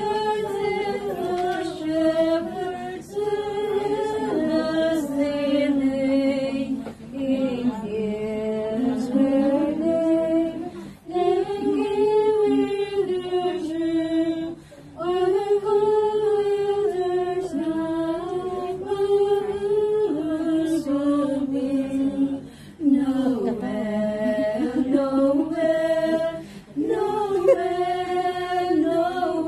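A small group of women singing together as a choir without instruments, in phrases broken by short pauses for breath.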